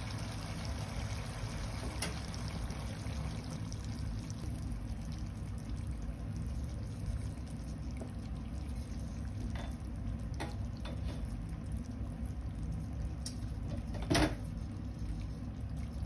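Chicken adobo sauce simmering in a nonstick pan on a gas stove: a steady low rumble with scattered small pops and clicks, the loudest a little before the end.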